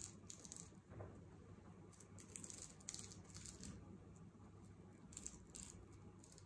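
Near silence with a few faint, brief rustles of a paper sewing pattern and fabric being handled while pattern markings are transferred.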